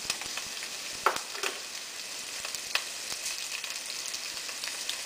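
Diced onions frying in hot oil in a stainless steel pan: a steady sizzle with crackles and pops throughout, a couple of louder pops about one and three seconds in.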